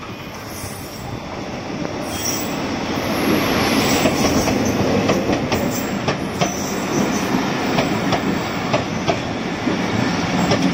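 Diesel-hauled Bangladesh Railway intercity passenger train approaching and passing close by, growing louder over the first few seconds. Its coaches then roll past with a steady rolling noise and irregular clicks of the wheels over the rail joints.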